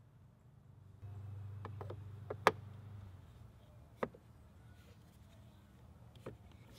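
A handful of sharp clicks and taps from handling a scooter mirror and an open-end wrench, the loudest about two and a half seconds in, over a low hum that lasts from about one to three seconds in.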